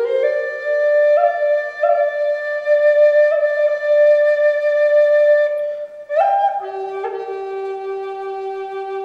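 Background music: a slow solo woodwind melody of long held notes. The notes step up and down in the first seconds, one note is held for about two seconds, and after a brief break about six seconds in the melody settles on a lower, long-held note.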